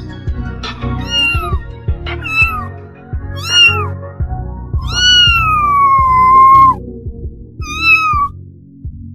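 A cat meowing about five times, high-pitched calls that fall in pitch, the longest one about five seconds in and lasting nearly two seconds. Background music with a low beat plays underneath.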